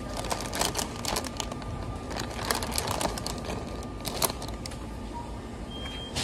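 Plastic candy bags crinkling as they are handled on a shop shelf, in a run of short crackles over roughly the first four seconds.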